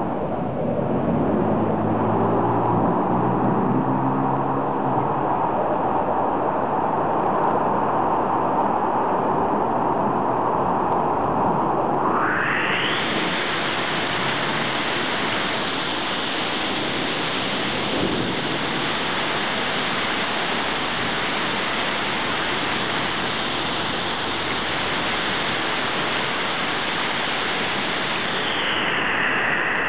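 Heavy rain falling, a loud steady hiss that turns brighter about twelve seconds in. A low hum shows in the first few seconds.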